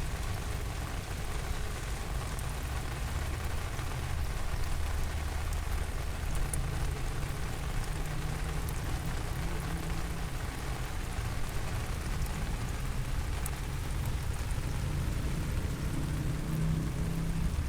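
Steady rain falling on surfaces, with a low rumble beneath it and a few faint ticks of individual drops.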